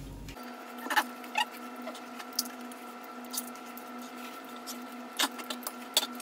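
Close-up eating sounds: about half a dozen short, wet mouth clicks and smacks from chewing, scattered irregularly over a faint steady hum.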